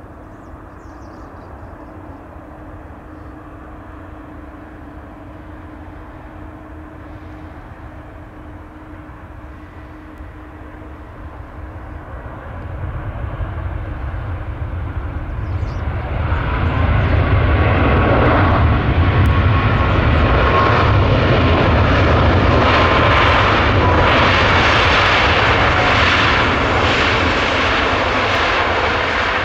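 Boeing 737 MAX 8's CFM LEAP-1B jet engines on landing: faint and steady at first, then growing loud from about halfway through into a wide rushing noise with a faint whine, as reverse thrust is applied on the landing roll.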